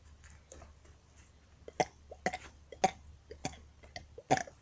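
A boy makes a series of short, sharp gulps and clicks in his mouth and throat: faint at first, then about six louder ones in the second half. It sounds like swallowing air to work up a burp.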